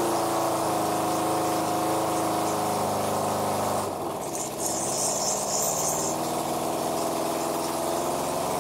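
Kawasaki KZ650's air-cooled inline-four engine running steadily on its first startup. About four seconds in it falters briefly, then runs on, with a short high hiss just after.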